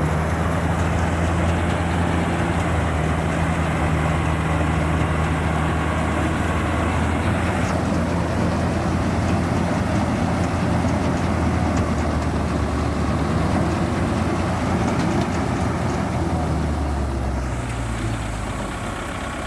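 Kubota MU5502 tractor's diesel engine running steadily while powering a Balkar 525 rice harvester. Near the end the engine note drops to lower revs and eases toward idle.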